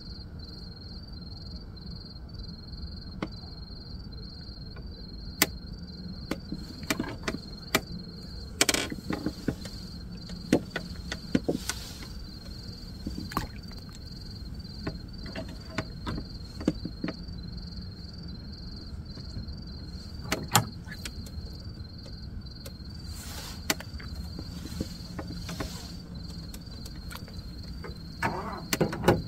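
Night insects chirping in a steady, evenly pulsing trill over a low rumble, with scattered clicks, knocks and rustles of handling close to the microphone as the angler moves among his rod rests.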